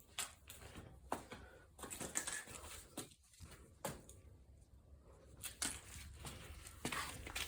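Irregular light clicks and taps, a few a second, over a faint low hum: small hard parts being handled.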